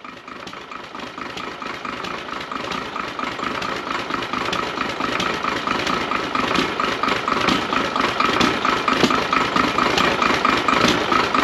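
Diesel engine running at idle with a steady rhythmic knock, growing gradually louder.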